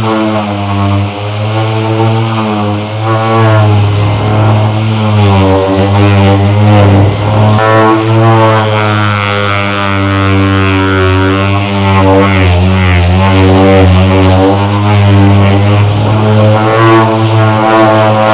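Metabo SXE 450 Turbotech random orbital sander running in its coarse 6 mm orbit with P40 sandpaper, stripping enamel paint off a wooden plank: a steady buzzing drone whose pitch wavers slightly as the load on the pad changes.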